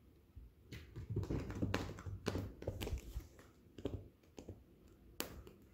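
A cat's paws tapping, thumping and scrabbling on a rug and wooden floor as it pounces on a laser-pointer dot. The taps come in an irregular patter, with one sharper click near the end.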